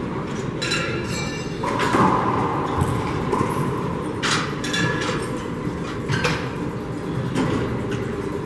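A rubber handball smacked by hand and slapping off the walls and floor of an enclosed four-wall court, sharp hits about once a second, each ringing in the hard-walled room. A short squeak about a second in fits a shoe on the hardwood floor.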